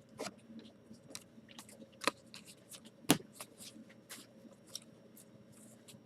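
Trading cards being handled and flipped through by hand: a run of light clicks and scrapes, with two sharper snaps about two and three seconds in.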